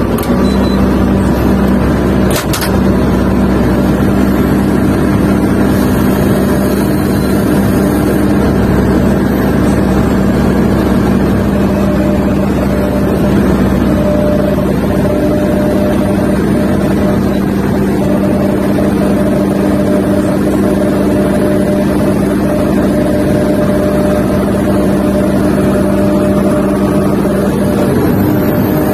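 Sumitomo SH250 excavator's diesel engine running steadily under load while the arm and bucket work, heard from inside the operator's cab. A single sharp click about two and a half seconds in.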